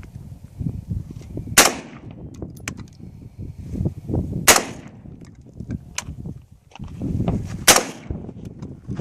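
M16 rifle fired three single shots about three seconds apart, each a sharp crack with a brief ring-out, over a low rumble between shots.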